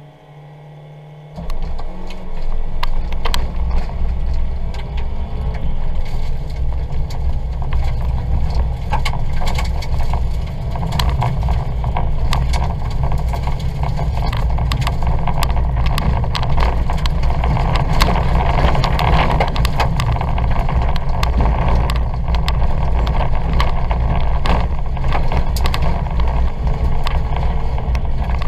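A Ford Fiesta's 1.2-litre engine heard from inside the cabin, quieter for the first second or so, then loud as the car sets off and runs hard. Frequent sharp knocks and rattles come through as it drives over the rough dirt track.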